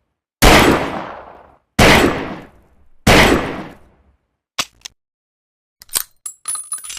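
Three revolver shots about 1.3 seconds apart, each followed by a decaying reverberant tail. Then two short clicks and, near the end, a run of light metallic clicking and clatter.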